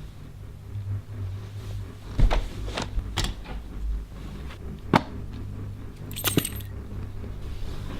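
A few sharp metallic clicks and knocks over a low steady rumble, the last, about six seconds in, with a brief jingle like keys or coins.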